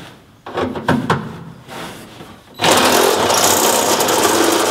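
Handheld power tool worked against a car's steel floor pan: a few knocks and taps, then about two and a half seconds in it starts a loud, steady run that carries on past the end.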